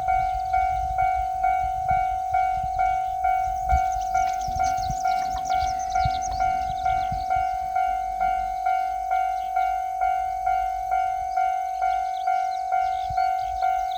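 Japanese level-crossing warning bell ringing its electronic 'kan-kan' strike, a clear single-pitched ding repeated evenly about twice a second.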